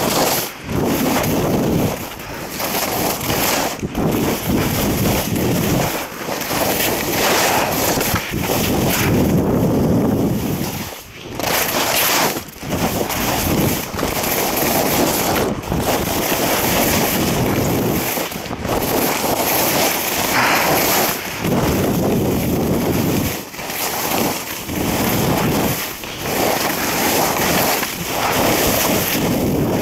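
Wind buffeting the microphone of a body-worn camera on a skier running fast downhill, mixed with the hiss of skis sliding on snow. The rush swells and drops every few seconds.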